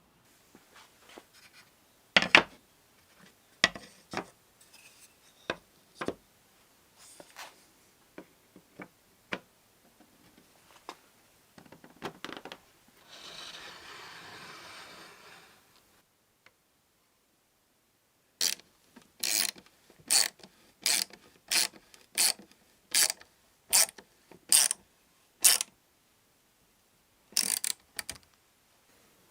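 Hand-tool work on a wooden cabinet. Scattered sharp clicks and knocks are followed around halfway by about three seconds of scraping, then a run of about ten evenly spaced sharp clicks, a little over one a second.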